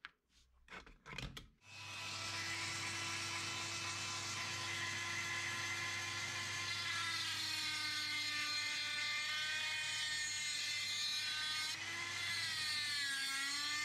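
Handheld rotary tool with a cut-off disc starting up about a second and a half in and running with a steady whine. Its pitch dips now and then as the disc cuts into the metal shell of a K40U-9 paper-in-oil capacitor.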